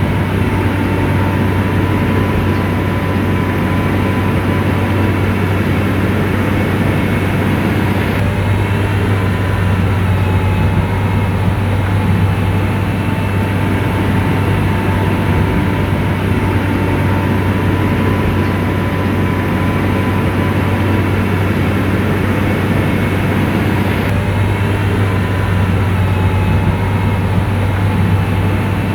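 SDLG motor grader's diesel engine running steadily: a constant low drone with a faint wavering whine above it.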